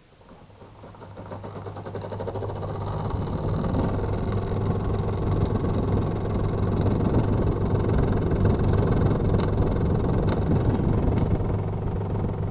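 Air conditioner starting up, its sound building over about two seconds into a loud, steady mechanical hum. This is the unit complained of as noisy.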